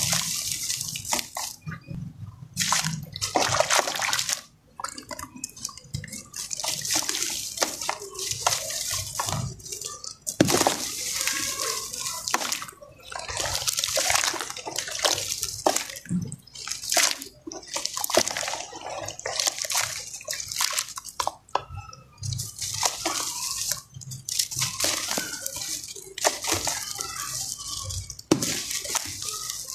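Dry sand-and-cement lumps crumbled by hand into a tub of water: grit and powder pour and patter onto the water in repeated hissing bursts of a second or two, with a few sharp clicks as lumps break.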